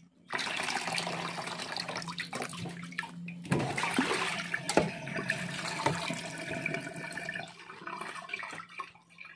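Tap water running into a stainless-steel sink and bowl while pieces of beef tripe are rinsed and rubbed by hand, with a few sharp knocks in the middle. The running water eases off near the end.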